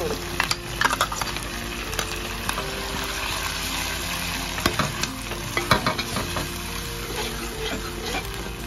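Drumstick-leaf paste sizzling in hot oil in a steel pan while a metal spoon stirs it, the spoon clicking and scraping against the pan now and then.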